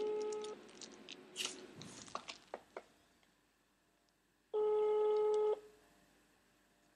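Italian telephone ringback tone heard down the line as an outgoing call rings unanswered: a steady single-pitch tone ends about half a second in, then a second one-second ring comes about four seconds later, with a few faint clicks in between.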